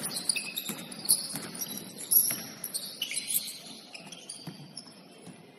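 Basketball shoes squeaking on a hardwood gym floor as players cut and stop, short high squeals coming one after another, with a few thuds of the ball or feet, the loudest a little over two seconds in.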